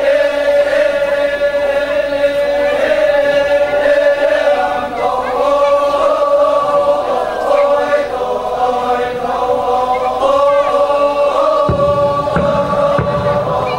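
A group of voices chanting together in long, held notes, several pitches sounding at once. Near the end a low rumble comes in under the chant.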